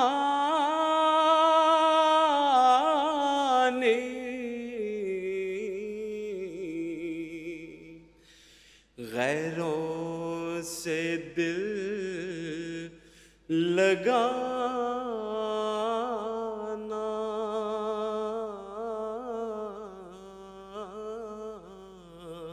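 A man's solo voice chanting an Urdu devotional nazm without accompaniment, drawing out long held notes that waver slowly in pitch. It runs in three long phrases with two short pauses for breath.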